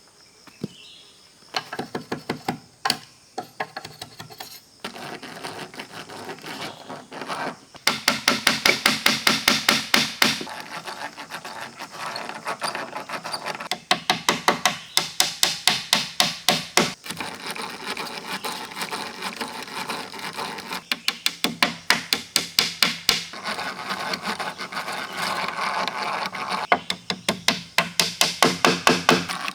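Rapid hard strikes on wood, about six or seven a second, in runs of a few seconds broken by short pauses.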